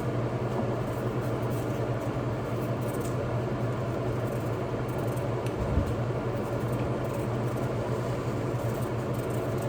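A steady low hum over a noisy background, with one short knock about six seconds in.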